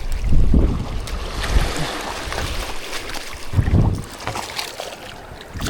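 Shallow reef water sloshing and splashing, with two louder surges, and wind buffeting the microphone.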